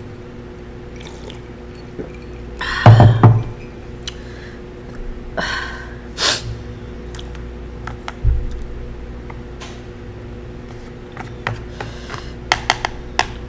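A person at a meal: a loud breathy exhalation with a bit of voice about three seconds in, just after a sip from a cup, then a few softer breaths, and quick light clicks of chopsticks against a plastic takeout tray near the end, over a steady hum in the room.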